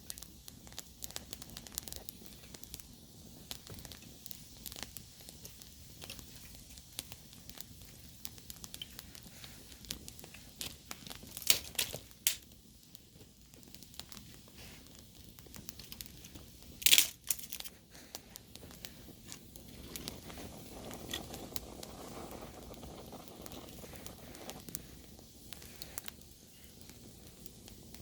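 Wood campfire crackling, with many small irregular snaps and a few louder sharp pops about halfway through. A soft hiss swells for a few seconds later on.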